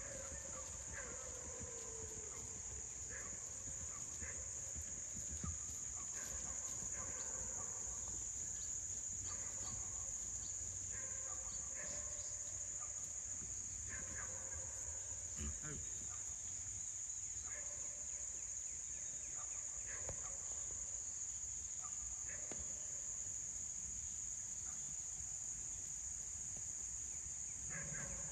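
Steady, high-pitched, unbroken chorus of insects, with faint scattered sounds beneath it.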